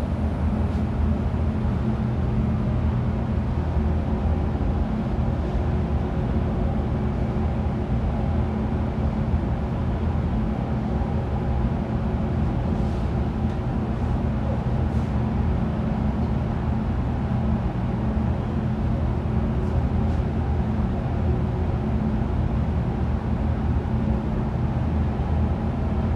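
Steady low drone and hum of a powder-coating spray booth's air extraction system, running while clear powder is sprayed from an electrostatic powder gun.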